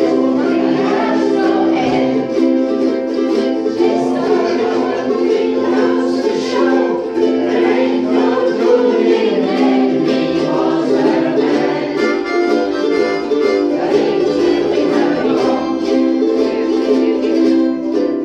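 A group of ukuleles strumming together in an instrumental passage, over a steady held chord that sounds through the whole stretch.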